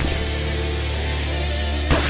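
Background music with held notes over a steady bass, and one sharp knock near the end.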